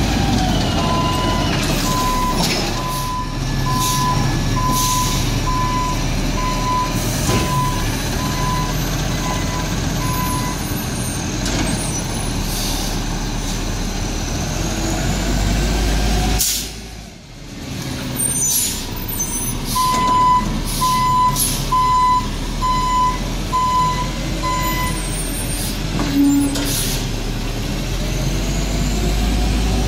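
Peterbilt 320 garbage truck's diesel engine running, with its backup alarm beeping at a steady pace for about ten seconds, then again for about five seconds later on. Short sharp air-brake hisses come in between.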